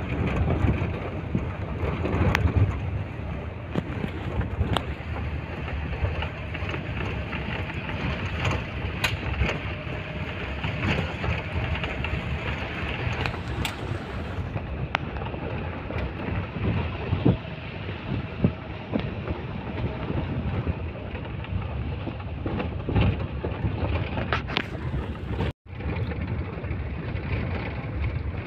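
Safari vehicle driving along a dirt forest track: a steady rumble of engine and tyres on the rough road, with wind noise on the microphone and scattered knocks from bumps. The sound cuts out for an instant a few seconds before the end.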